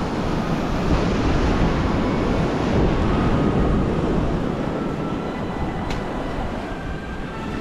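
Wind buffeting the microphone over the steady wash of ocean surf, a constant low rumble.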